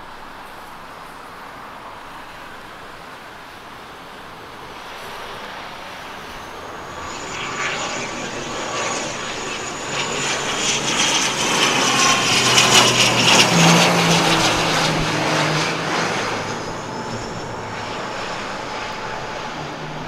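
ATR 72-600 turboprop airliner flying past low on final approach, its two Pratt & Whitney PW127M engines and propellers droning. The sound swells over several seconds, is loudest about two-thirds of the way through, then fades with the whine and hum dropping in pitch as the aircraft passes.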